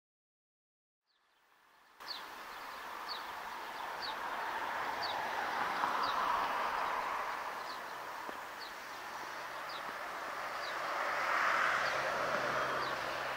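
Outdoor ambience of wind rustling through grass and trees, swelling and easing in gusts. A small bird repeats a short, high, falling call about once a second. The sound begins after about two seconds of silence.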